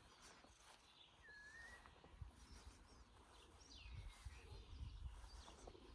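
Faint bird calls over quiet outdoor ambience with a low rumble: a short whistled note about a second in, and a downward-sliding call about four seconds in.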